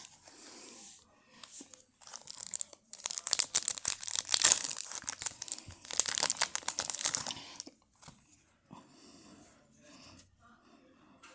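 A hockey card pack's wrapper being torn open and crinkled: a few seconds of loud crackling and tearing, with fainter rustling of the wrapper and cards before and after.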